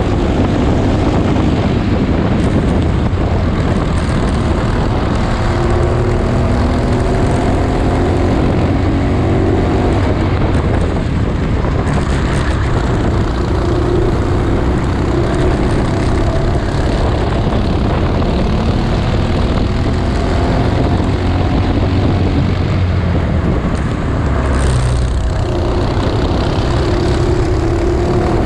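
Honda Cadet kart's four-stroke engine running at racing speed, its pitch rising and falling repeatedly as it is driven hard through the corners and out onto the straights.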